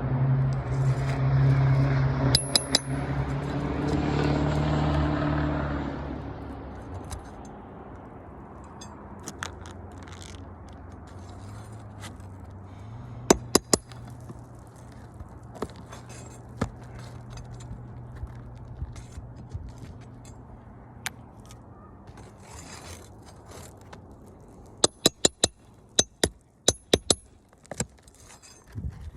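Scraping and scattered sharp clicks, some with a short metallic ring, from roofing shingles being worked loose and handled with a metal tool. The clicks come in clusters about halfway through and near the end. A low droning hum is heard over the first several seconds, then fades out.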